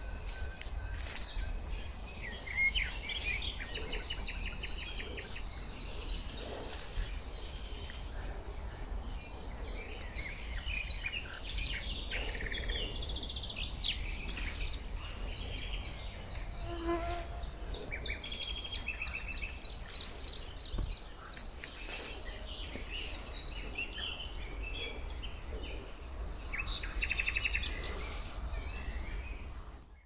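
Several songbirds singing and calling over one another in riverside woodland: quick trills, chirps and whistles overlapping throughout, with a steady low rumble underneath. The sound fades out at the very end.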